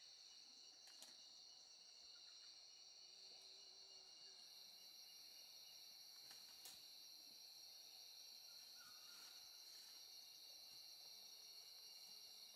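Faint, steady chorus of insects trilling at a high pitch, one of them with a fast pulsing rhythm. A higher hiss joins about four seconds in, and two faint clicks are heard.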